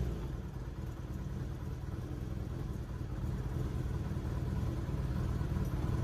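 Kawasaki Zephyr 750's air-cooled inline-four idling with a steady, low, lumpy rumble, settling down from a rev in the first second.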